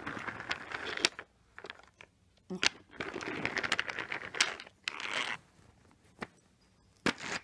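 Crinkling and rustling with scattered sharp clicks, in two stretches with a quieter gap between, then a couple of lone clicks near the end.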